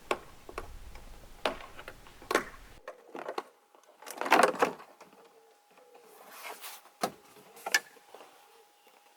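Plastic trim clips on a Mercedes SL550's roof trim being snapped out: several sharp clicks, with longer rustling and scraping as the loosened trim panel is handled.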